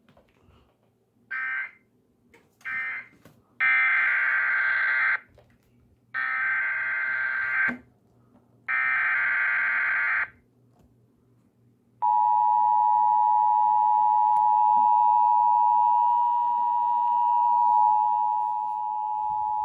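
Emergency Alert System tones: two short bursts of warbling digital data, then three longer bursts of the SAME header data of about a second and a half each, followed about twelve seconds in by the steady two-tone EAS attention signal, which holds for about eight seconds.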